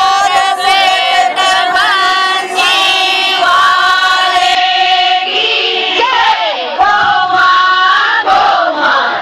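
A group of women singing and chanting together loudly, a Gangaur festival song.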